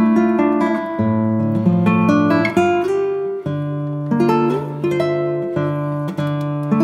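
Background music: a plucked string instrument picking out notes and chords.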